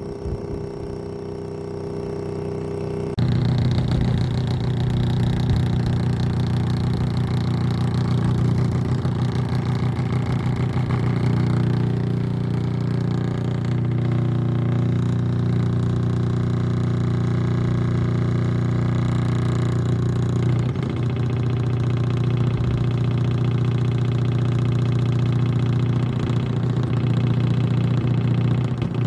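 Opened-up JBL Xtreme 2 portable Bluetooth speaker with its drivers out of the housing, playing a steady low bass test tone as a hum with many overtones. It gets louder about three seconds in and then holds steady.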